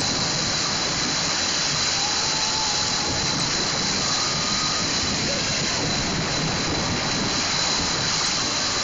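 Steady rushing spatter of water churned up by a homemade paddle boat's paddles, sounding like heavy rain.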